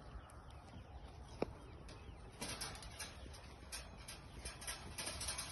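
Faint bird calls in the background. About a second and a half in comes a single sharp click, then from about two and a half seconds in a run of short footsteps and rustles on grass and dirt.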